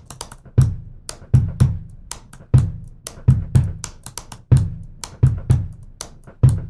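Rhythmic percussion beat: deep thumps falling in a repeating pattern of one then two, with sharp clicks between them.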